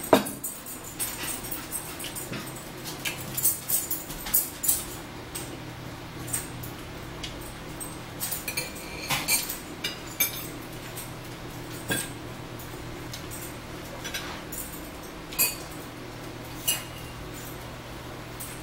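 Close-miked eating sounds: chewing and lip smacking, with irregular fork and plate clinks, over a steady low hum.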